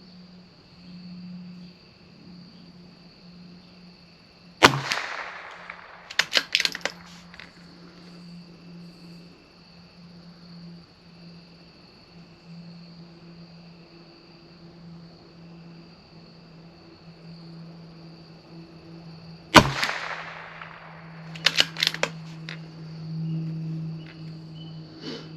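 Two .22 LR shots from a CZ 457 bolt-action rifle, about fifteen seconds apart, each followed a second or two later by a quick run of clicks as the bolt is worked to chamber the next round. Crickets chirp steadily throughout.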